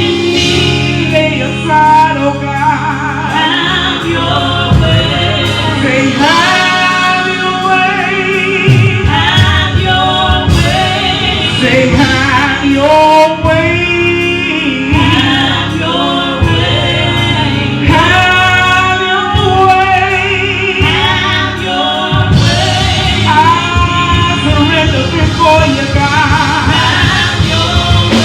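Gospel music: voices singing together over instrumental backing with a sustained bass.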